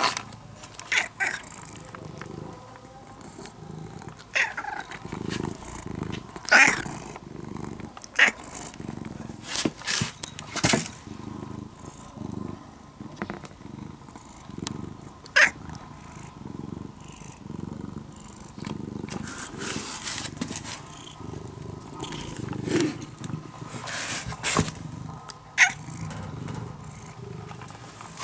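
Domestic cat purring close to the microphone, a steady low rumble throughout, with short sharp clicks now and then.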